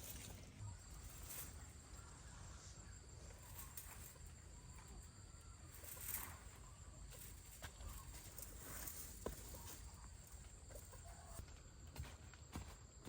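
Faint outdoor farmyard ambience with occasional soft chicken clucks and scattered light clicks and knocks.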